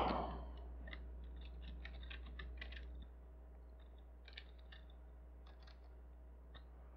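Computer keyboard typing: a quick run of faint keystrokes in the first three seconds, then a few scattered ones, over a steady low hum.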